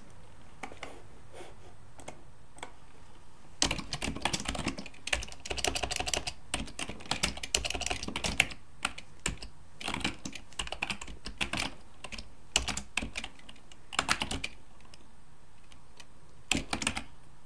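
Typing on a computer keyboard: irregular runs of quick key clicks starting a few seconds in, pausing briefly, then a short run again near the end.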